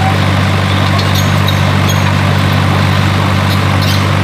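Heavy engine idling with a steady, unchanging low hum, like a diesel truck or excavator at rest.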